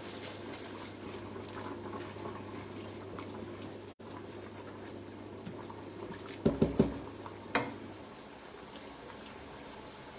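Steady bubbling hiss of a pot of water boiling on the stove. Past the middle come three quick knocks of kitchenware, then one more a moment later.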